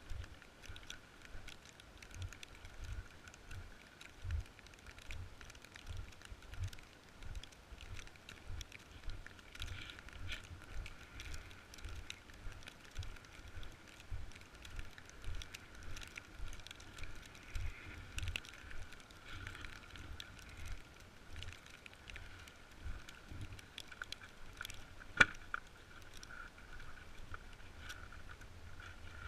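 Snowboard sliding and scraping over snow, with wind buffeting the camera microphone in a low, gusty rumble. A sharp knock comes near the end.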